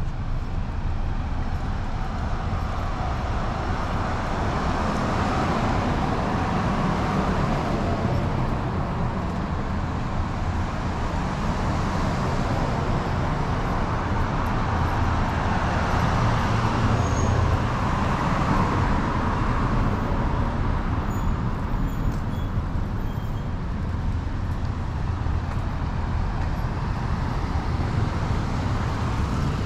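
Road traffic on a town street: cars and trucks passing, their engine and tyre noise swelling and fading several times. A van and a pickup truck pass close by near the end.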